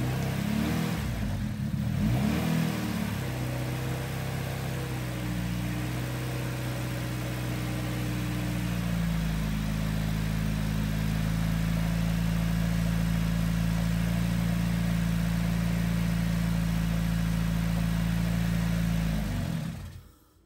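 Freshly rebuilt Honda B18C Type R four-cylinder engine running on its first start-up. The revs rise and fall in the first few seconds, then run steady with a shift in pitch about halfway. It is being held up on the throttle because it will not hold idle on its own with the new Skunk2 Pro2 cams and ported head: it needs a tune. The engine shuts off shortly before the end.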